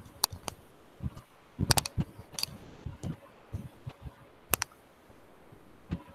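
Computer keyboard and mouse clicks: a dozen or so sharp, irregularly spaced clicks, heard through a video-call microphone.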